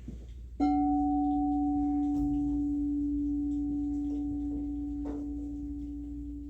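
A singing bowl struck once about half a second in, ringing with a steady low hum and a fainter higher tone that slowly fade.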